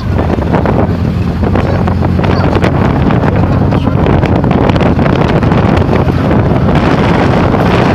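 Wind buffeting the phone's microphone over the steady running noise of a moving open-sided vehicle, with frequent short rattles and knocks from the body as it rides along.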